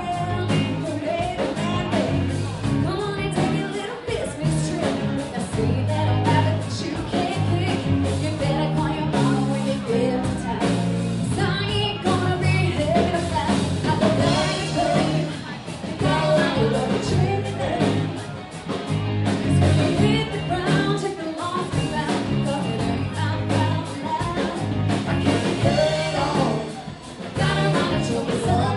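Live rock band performing, with a woman singing lead over electric guitar and drums.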